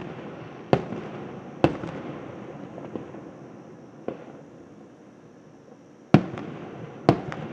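Aerial fireworks shells bursting overhead: about six sharp booms at uneven intervals, each trailing off in a rumbling echo, the loudest about six seconds in.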